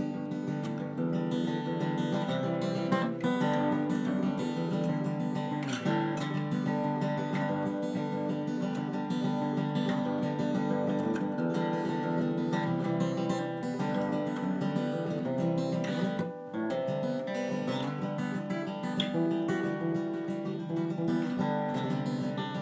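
Acoustic guitar being played solo, chords and single notes ringing, with a brief break in the playing about two-thirds through.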